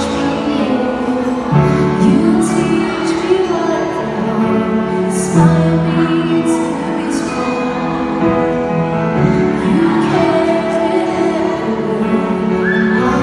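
Music with singing: a song with a voice over instrumental accompaniment.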